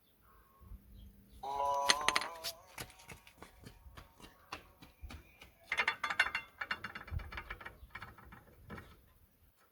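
Metal tools and brake parts clinking and knocking against each other during front brake pad work, in quick irregular runs of sharp clicks. A short pitched sound comes about a second and a half in.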